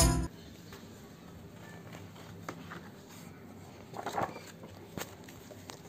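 Music cuts off right at the start; then faint handling of a paperback picture book, with a brief rustle of paper as the cover is opened about four seconds in and a few light taps.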